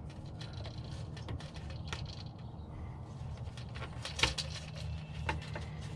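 Light, scattered clicks and taps of a gear-oil pump's tip being worked against a transaxle fill hole, with one sharper click about four seconds in, over a low steady hum.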